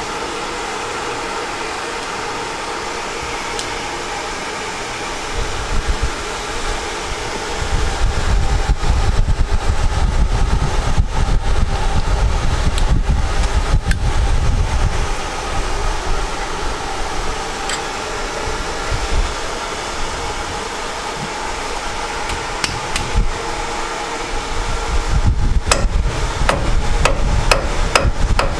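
A blower runs with a steady whooshing hiss and faint hum. A deep rumble joins it from about six to fifteen seconds in, and a quick run of sharp clicks and knocks comes near the end.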